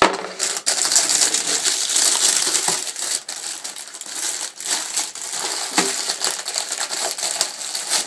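Clear plastic wrapping around a wireless router crinkling and rustling as it is handled, with a few sharp clicks and knocks.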